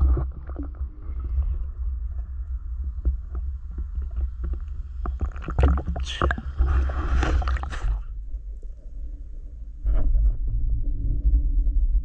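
Water sloshing and splashing around a camera held at the water's surface, with a constant low rumble of water against the housing and scattered small knocks. A louder stretch of splashing comes in the middle, and near the end the sound turns dull and muffled as the camera goes under water.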